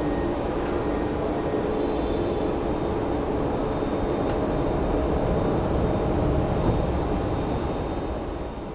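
Jet engines of a twin-engine widebody airliner at takeoff thrust as it climbs out: a steady rushing noise with a low rumble, fading away near the end.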